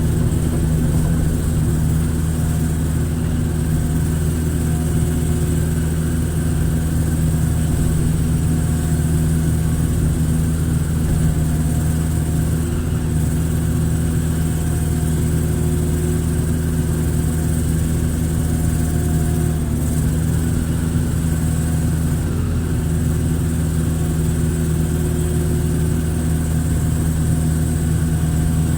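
Hitachi excavator's diesel engine running steadily while digging a ditch, with a faint higher whine that comes and goes.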